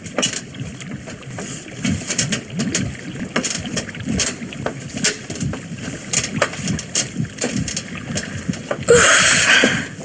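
Radio-drama sound effects of river water lapping and moving beneath an old water mill, with irregular knocks and creaks throughout. A loud hissing rush lasting about a second comes near the end.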